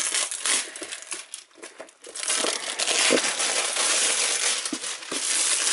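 Thin clear plastic wrapping film being pulled off a cardboard box and crinkled in the hands, in short rustles at first and then a dense crackling from about two seconds in.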